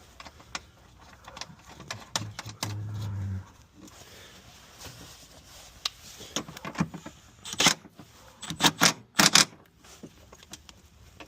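Metal hand tools and parts clinking and clattering in irregular clicks and knocks, with a cluster of loud, sharp clacks near the end.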